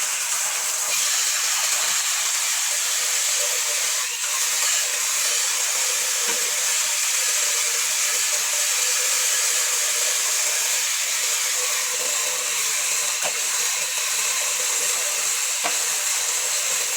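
Dyson V12 cordless stick vacuum running steadily, a loud even rush of air with a high whine, until it cuts off suddenly at the end.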